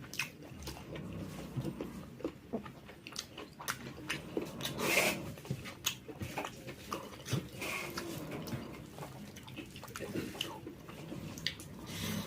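Close-up chewing and eating sounds of jackfruit curry: a steady run of wet mouth smacks and small clicks, with a louder smack about five seconds in and another near eight seconds.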